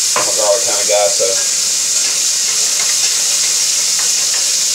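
Butter sizzling steadily in a stainless steel frying pan around a seared rockfish fillet and clams, with fresh garlic just added to toast.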